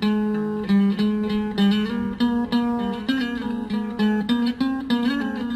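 Acoustic guitar being played, a quick run of plucked notes over a repeating low note.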